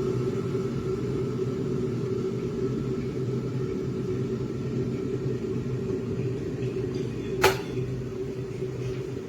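Electric kettle heating water: a steady rumble with a low hum, and one sharp click about seven and a half seconds in.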